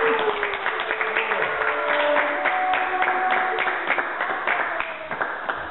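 Audience applauding and cheering as the routine ends: irregular hand claps that start suddenly and thin out toward the end, with a rising shout at the start and held voices over them.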